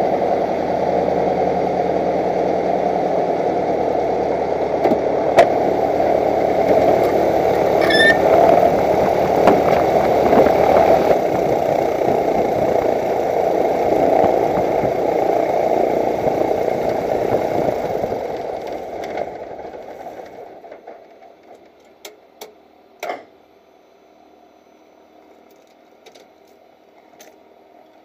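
Light aircraft's piston engine idling, heard from inside the cockpit, then shut down: it dies away about 19 seconds in and the propeller stops. A few short clicks follow.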